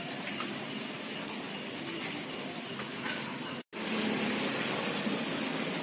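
Steady rain falling on a wet street, an even hiss. It drops out for an instant about three and a half seconds in, then comes back slightly louder.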